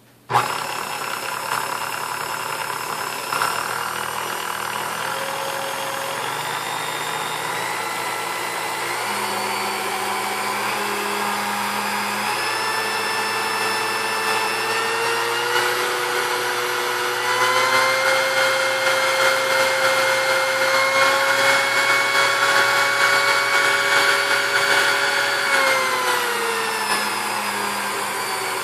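Restored Sunbeam Mixmaster Model 12 stand mixer's motor switched on, beaters spinning, its whine stepping up in pitch as the dial is turned through the speeds and getting louder at the top speeds, then sliding back down near the end. The freshly greased and oiled mixer runs smoothly on all speeds.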